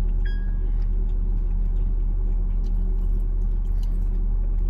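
Steady low hum of a car engine running, with a short high beep about a quarter second in and a few faint clicks.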